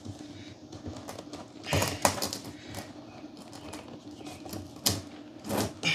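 White PVC elbow fitting being pushed and worked into a hole cut in a plastic barrel: hard plastic clicking and scraping against plastic, with a few louder knocks about two seconds in and near the end.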